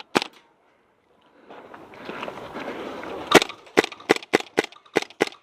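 Airsoft gun firing a string of single sharp shots, about three a second, in the second half, after a lone shot near the start.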